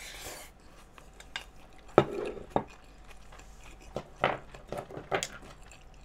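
A spoon and chopsticks clinking and tapping against bowls while eating: a handful of sharp clicks spread over a few seconds.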